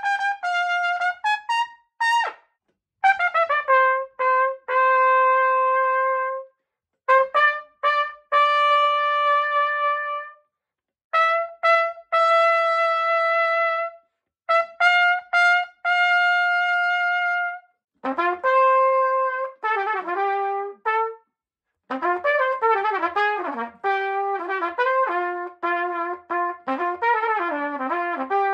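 Solo trumpet playing unaccompanied: phrases of long held notes separated by short breaths, then a quicker passage of many short, moving notes in the last third.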